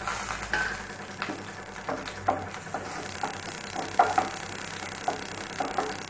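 Chopped garlic sizzling in hot oil in a kadai, with a wooden spatula clicking and scraping against the pan as it is stirred, in irregular sharp ticks over a steady hiss.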